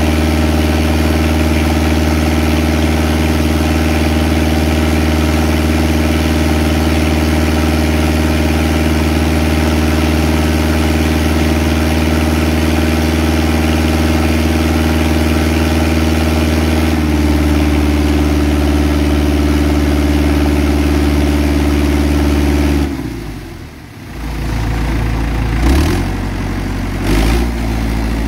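Engine driving a deck-mounted water pump, running steadily while it feeds a high-pressure hose jet washing shell off a boat deck. The engine note shifts slightly about two-thirds of the way through; near the end the sound drops briefly, then comes back rougher and less even.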